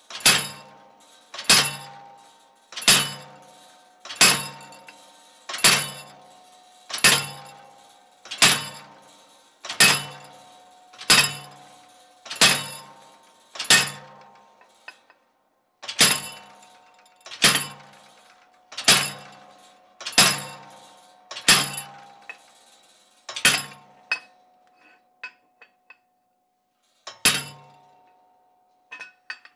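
Hand hammer striking a cold chisel to score a line into half-inch steel plate. The blows are steady, about one every second and a half, and each leaves a brief metallic ring. The strikes pause once partway through and become sparse near the end.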